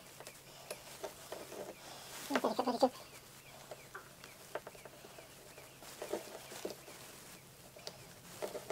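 Short runs of pulsing animal calls, the loudest about two and a half seconds in and weaker ones near six seconds and at the end, with faint scattered clicks between.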